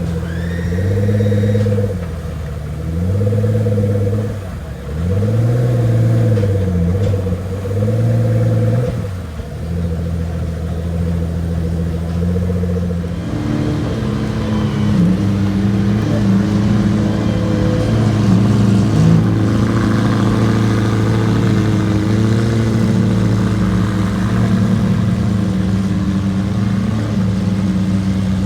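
A supercar engine revving in a series of blips, the pitch rising and falling every couple of seconds. After about thirteen seconds it settles into a steady, rumbling run.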